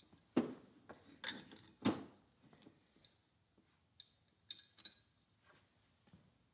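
Faint, scattered knocks and light metallic clicks from handling a Honda UT3 cylinder head and a cordless drill while a valve is lapped with fine 600-grit compound. The compound itself is nearly silent.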